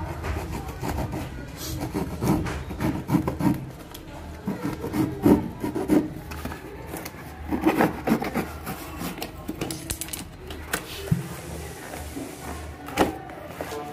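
A knife scraping and slicing through packing tape on a cardboard shipping box, in irregular strokes. Near the end the cardboard flaps rub and crackle as the box is pulled open.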